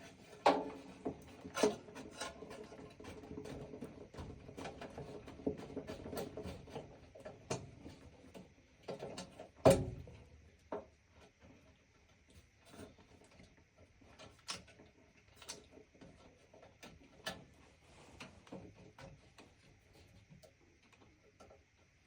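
Handling noise: scattered clicks, rubs and knocks of parts and tools being handled, busiest in the first half, with one louder knock about ten seconds in and fewer, lighter clicks after. A faint steady high tone runs underneath.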